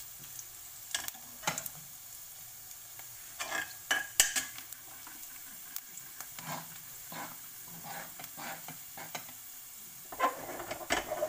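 Garlic cloves sizzling steadily in hot oil in a metal kadhai, browning, while a steel spoon stirs them with sharp clinks and scrapes against the pan every second or two, a quick run of scrapes near the end.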